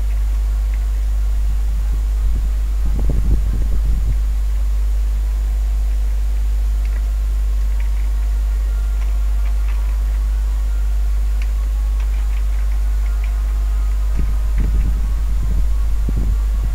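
Steady low electrical hum with faint hiss, the background noise of the recording setup. Two short spells of low rumbling come about three seconds in and again near the end, with a few faint ticks scattered between.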